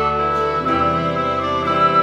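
Instrumental ensemble music: a flute holds a sustained melody line over held chords from a khaen, the bamboo mouth organ of Isan music. The low chords grow fuller about half a second in.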